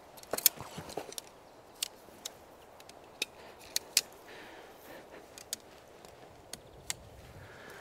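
Sections of aluminium tent poles clicking together as they are unfolded and joined: about ten short sharp clicks at uneven intervals, the loudest about half a second in and again about four seconds in.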